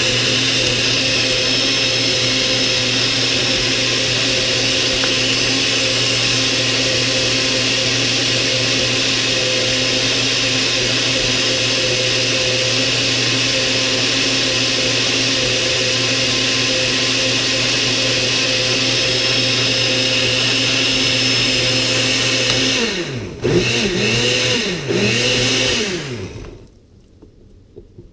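Hamilton Beach countertop blender running steadily, mixing a liquid brine. About 23 seconds in the motor slows and speeds back up twice, then shuts off and spins down.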